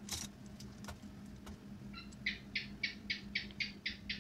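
An animal call: a run of about ten short, evenly spaced high chirps, nearly four a second, starting about two seconds in. A brief rustle comes just after the start, over a faint steady hum.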